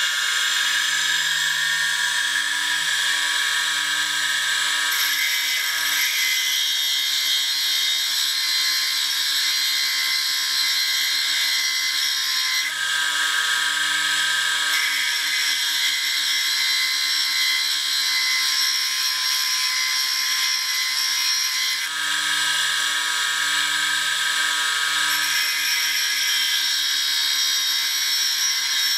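Small electric bench grinder running, with the brazed tip of a lathe parting tool held against its abrasive wheel: a steady, high grinding hiss over the motor's hum. The grinding noise changes a few times as the tool is shifted against the wheel.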